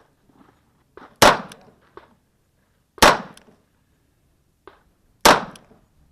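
Three loud handgun shots about two seconds apart, each a sharp crack with a short trailing echo. Fainter sharp cracks fall between them.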